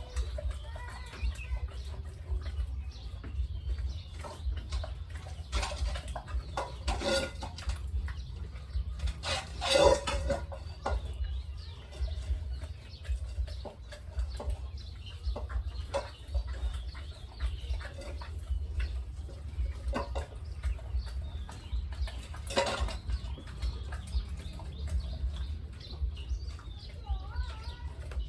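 Chickens clucking, with scattered knocks and rustling and a steady low rumble underneath. The loudest noise is a short burst about ten seconds in.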